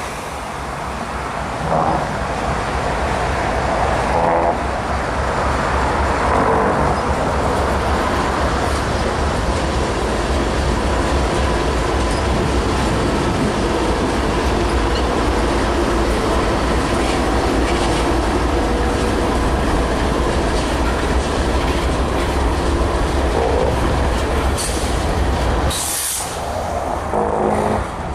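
Freight train passing: a pair of GE diesel locomotives go by, followed by a long string of tank cars, with a steady loud rumble of wheels on the rails.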